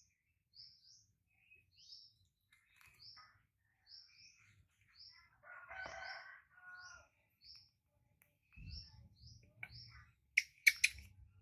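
A small bird chirping over and over in short, high notes, about two a second. Near the end there are a couple of sharp clicks, the loudest sounds here.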